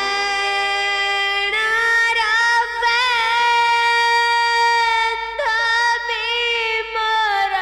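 A girl's high voice singing a song from the Odia stage play in long held notes with wavering ornaments. A new phrase begins about a second and a half in and again about five and a half seconds in.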